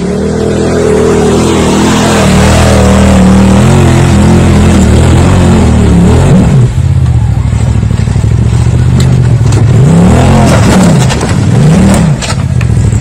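Side-by-side UTV engine revving hard under load on a steep rock climb. The revs swing up and down, briefly once about halfway through and twice more near the end.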